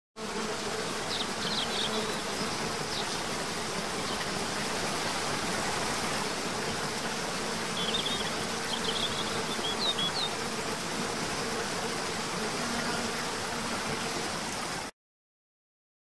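Steady insect buzzing over an even rushing hiss, with a few short, high bird chirps about a second in and again around eight to ten seconds. The sound starts abruptly and cuts off suddenly near the end.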